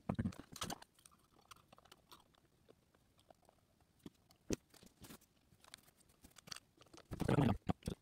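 Handling noises: scattered clicks and rustles as ceiling fan parts are fitted back together, with a sharp click about halfway through and a louder rustle near the end.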